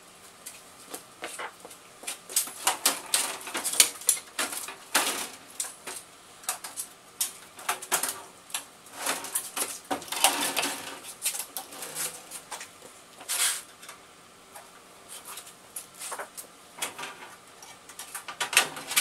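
Irregular clicks, knocks and rustling scrapes of a PDP-11/34A's cabinet being handled and turned on its side to get at its lower cover.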